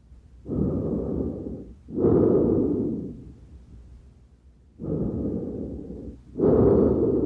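Recorded lung sounds: two full breaths. Each breath is a softer rush of air, then a short gap, then a louder rush.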